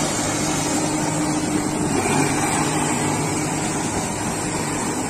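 Komatsu PC200 hydraulic excavator's diesel engine running steadily as the machine moves through shallow water, with a low even hum under a steady hiss.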